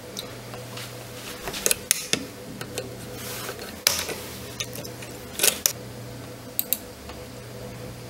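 Sharp clicks, several coming in quick pairs about a tenth of a second apart, over a steady low hum.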